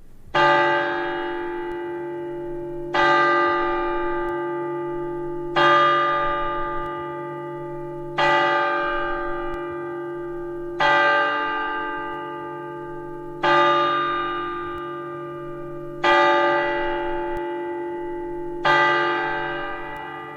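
A large cathedral bell tolling: eight evenly spaced strokes at the same pitch, about one every two and a half seconds, each ringing on and fading into the next.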